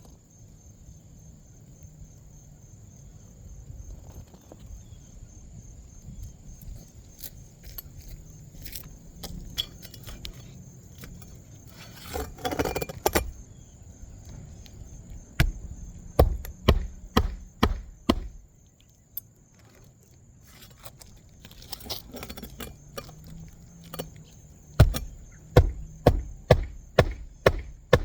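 Hammer blows on an asphalt roof shingle, struck in quick even runs of about two a second: a short run about halfway through and a longer one near the end. Rustling and a brief scraping come just before the first run, and a steady high thin whine sounds throughout.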